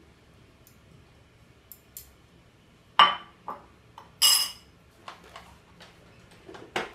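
Kitchenware clinking: a glass bowl and metal spoon set down, with a few sharp clinks about three and four seconds in, the second ringing briefly. Lighter knocks follow as the stand mixer's head is tilted back.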